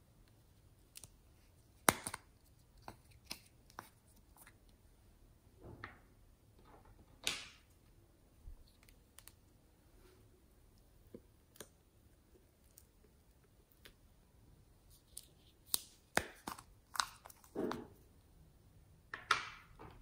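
Close handling sounds: scattered sharp plastic clicks and taps, with a few short soft scrapes and squishes, as a plastic lip-shaped cosmetic case is handled and its orange contents are scraped out with a plastic spatula into slime. The loudest clicks come about two seconds in and in a cluster near the end.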